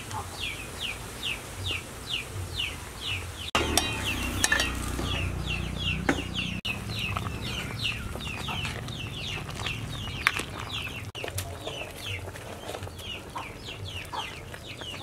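Chickens peeping continuously, a short high note falling in pitch about three times a second. A metal ladle clinks and scrapes against an aluminium soup pot a few times.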